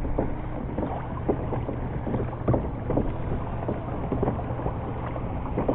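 Brooklyn Kayak PD10 pedal kayak under way: water splashing and lapping against the plastic hull, with scattered small knocks and clicks over a steady low hum.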